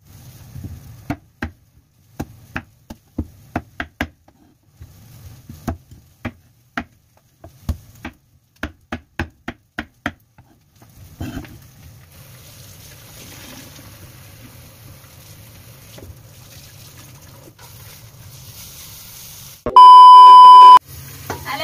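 Knife chopping through a firm white root on a wooden cutting board: irregular sharp strokes, a couple a second, for about ten seconds. Then a faint steady hiss and hum, and near the end a loud TV test-pattern beep, one steady tone held about a second before it cuts off.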